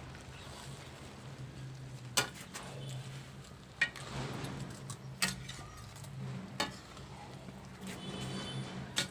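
Long metal ladle stirring and scraping thick carrot halwa in a large kadhai, with five sharp clinks of the ladle against the pan at intervals of one to two seconds. A steady low hum runs underneath.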